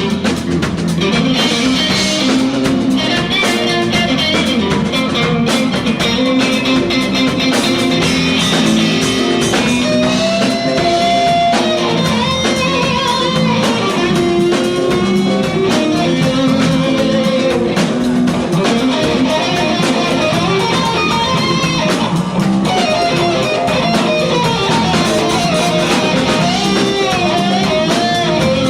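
Live band playing at a steady loudness, with electric guitar to the fore over drums and bass.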